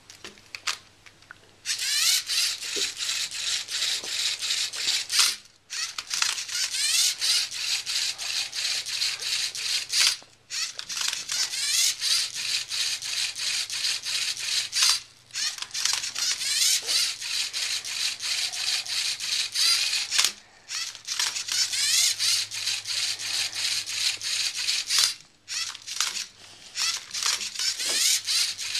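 LEGO Mindstorms NXT servo motors of a MindCuber robot whirring through their gears as it turns a Rubik's cube. The runs last about five seconds each, with brief pauses between them.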